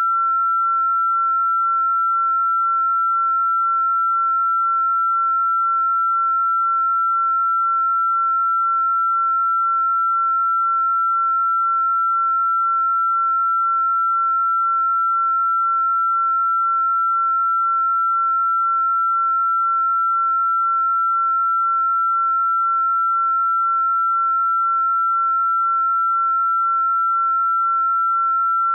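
A single electronically generated pure sine tone held at one fairly high pitch, steady and unchanging in pitch and loudness. It is a 'healing frequency' sound-therapy tone presented as an estrogen frequency.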